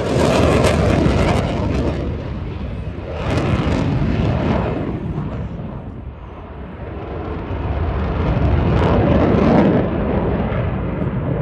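Eurofighter Typhoon's twin Eurojet EJ200 turbofans, loud jet noise with sharp crackling in the first second or two. The noise dips about six seconds in, then swells again.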